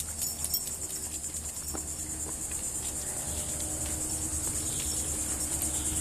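A steady chorus of insects, a high-pitched rapid pulsing trill, with a low rumble beneath.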